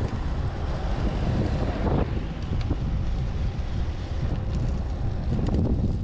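Wind rushing and buffeting over an action camera's microphone on a road bike at speed down a mountain descent: a steady, heavy rumble that swells and dips with the gusts.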